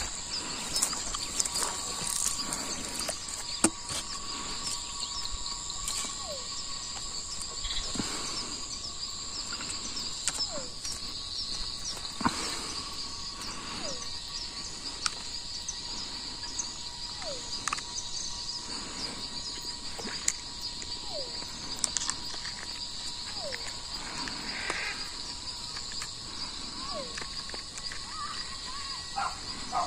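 Steady chorus of insects, a continuous high-pitched trilling, with a short falling call from an animal repeating every second or two and a few scattered clicks.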